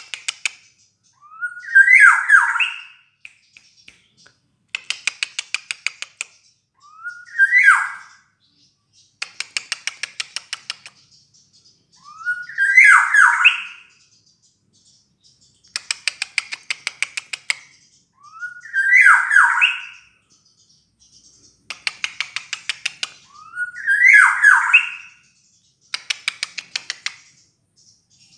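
Black-naped oriole (kepodang) calls played in a loop: a fast rattle of short notes lasting about a second alternates with a louder call of about a second and a half that sweeps upward. The pair recurs about every six seconds, nearly five times.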